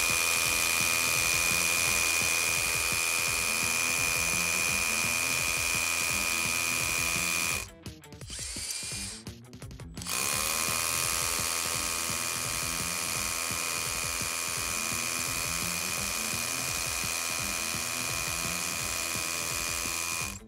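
Makita HR183D 18V cordless hammer drill with its dust extraction attachment, hammer-drilling a 10.5 mm hole sideways into concrete. It runs steadily with a high whine, stops about eight seconds in, then runs again for about ten seconds.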